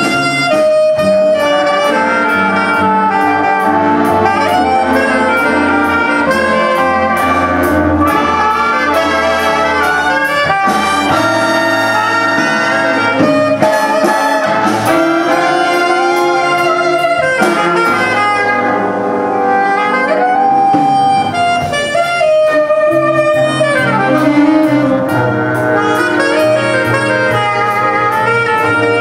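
Student jazz big band playing live: a saxophone section with trumpets and trombones over an upright bass. The deep bass drops away for about ten seconds in the middle, then comes back.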